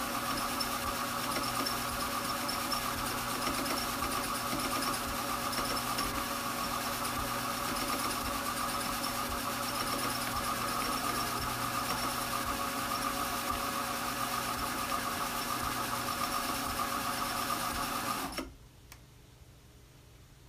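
Strauch Mad Batt'r electric drum carder running, its motor and drums whirring steadily while carding raw alpaca fleece. It is switched off about 18 seconds in and the sound cuts off suddenly.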